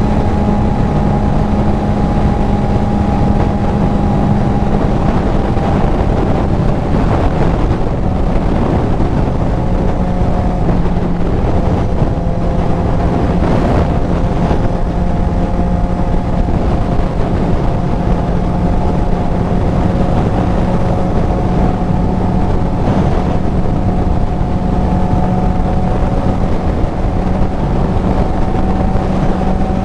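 Kawasaki Z900 inline-four motorcycle with an aftermarket full exhaust running at a steady cruise, its engine note dipping slightly about a third of the way in and then slowly climbing, under heavy wind rush on a helmet-mounted mic.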